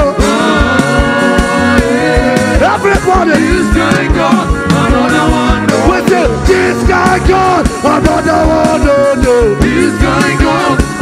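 Loud upbeat band music with a steady beat.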